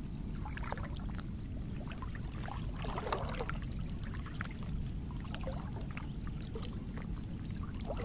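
Water splashing and dripping in short bursts as a wet fishing net is pulled up over the side of a small boat, with scattered light knocks, over a steady low rumble.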